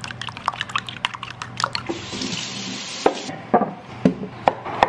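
Eggs being whisked in a ceramic bowl: rapid, irregular clicks of the utensil against the bowl for about two seconds. After a short hiss, a few separate knocks of a knife on a wooden cutting board follow.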